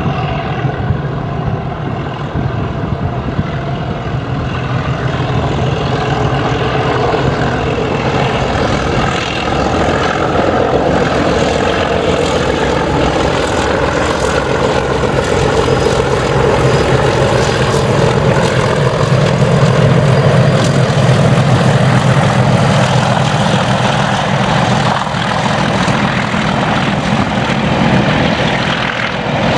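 Two Class 37 diesel locomotives, each with an English Electric V12 engine, growling as they haul a train of coaches past. The engine note builds to its loudest about two-thirds of the way through, then eases slightly.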